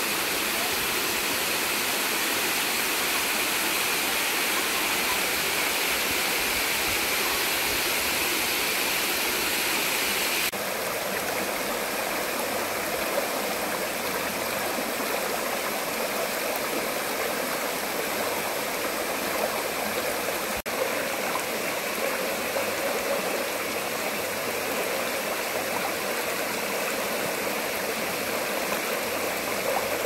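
Shallow creek water rushing and splashing over flat bedrock ledges and small cascades, a steady watery rush. About ten seconds in, the sound changes abruptly from a brighter hiss to a lower, fuller rush.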